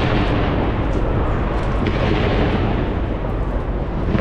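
Continuous dense barrage of New Year fireworks shots and bursts fired from the top of a skyscraper, with the cracking swelling again about two seconds in and near the end as fresh volleys go off.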